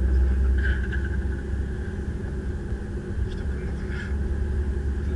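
Low, steady rumble of a car's engine and tyres heard inside the cabin while driving at town speed, easing a little in the middle and building again near the end.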